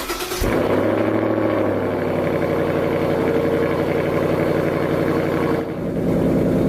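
Car engine running steadily at idle, with a short rush of noise at the very start and a slight change in its note near the end.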